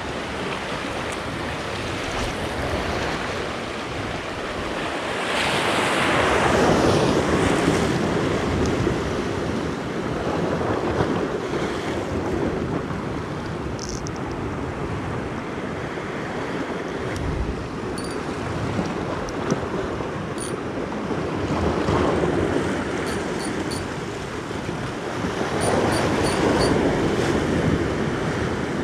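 Sea waves breaking and washing over shoreline rocks, a steady surf that swells louder twice as bigger waves come in.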